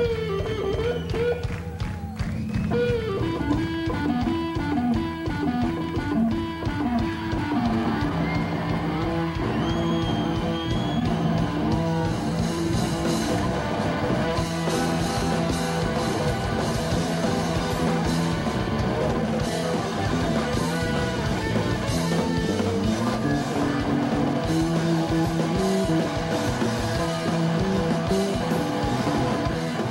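Live rock band playing an instrumental passage: electric guitar lines over drums. The cymbals come in about twelve seconds in and the band plays fuller from there.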